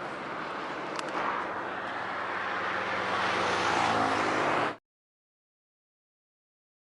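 Suzuki 125 motorcycle engine running under way with rushing wind noise, the engine note getting stronger near the middle. About two-thirds of the way through, the sound cuts off abruptly into dead silence.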